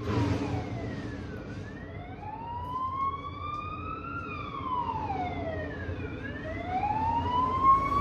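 Emergency vehicle siren wailing, its pitch sliding slowly down and up twice, each sweep about two to three seconds long.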